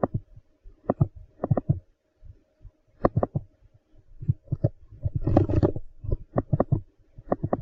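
A run of irregular taps and clicks, some single, some in quick pairs, with a denser flurry about five seconds in, over a faint steady hum.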